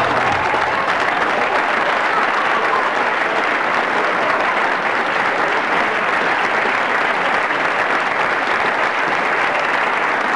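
Audience applauding, a dense steady clapping that cuts in suddenly as the music stops.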